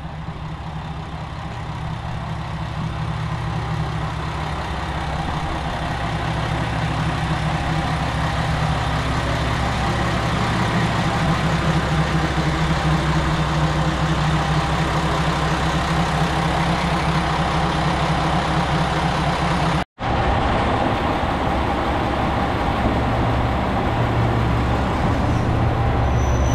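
Diesel railcar engine running with a steady low hum, growing louder over the first ten seconds or so and then holding steady, with a split-second break about twenty seconds in.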